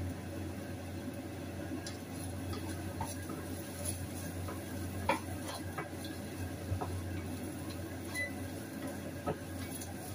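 Wooden spatula stirring in a frying pan, with scattered light knocks and scrapes of wood on the pan, over a faint steady sizzle of onions frying on low heat.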